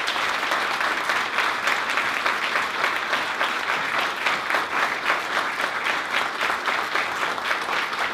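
Audience applauding: many hands clapping in a dense, steady stream of claps that carries on without a break.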